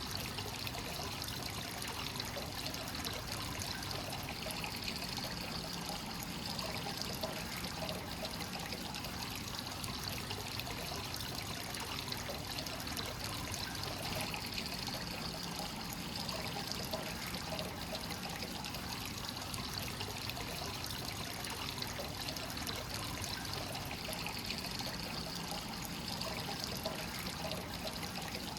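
Hot spring water pouring and trickling steadily into an onsen bath: freshly drawn source water flowing in constantly.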